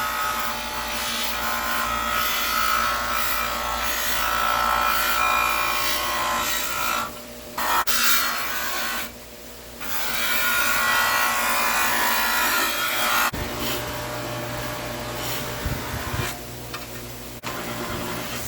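Bench polisher running, its buffing wheel rubbing and hissing against a piece of metal car trim held to it, with two short breaks when the piece is lifted off. After about 13 seconds the rubbing eases and the motor's steadier hum takes over.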